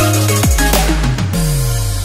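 Electronic background music with heavy bass-drum hits and a deep bass slide, ending on a final hit about a second in that rings out and fades.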